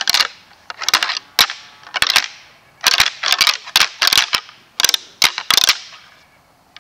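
Deer antlers being rattled: irregular bursts of sharp clacks as the antlers are knocked and ground together, about a dozen bursts over six seconds before stopping near the end. This is rut rattling, meant to imitate two bucks fighting and draw in a buck.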